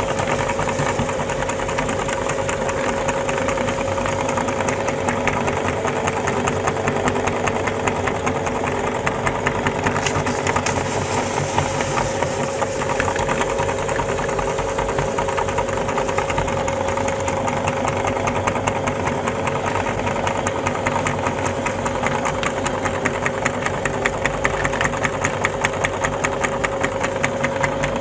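Belt-driven meat grinder running steadily, its flywheel pulley turning the auger as it grinds cream biscuits into crumbs. A constant mechanical hum with a rapid, even ticking.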